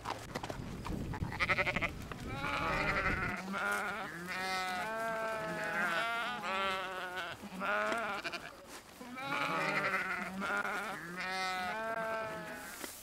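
Livestock bleating over and over: about six wavering, trembling calls of a second or two each. A low rumble sits under the first three seconds.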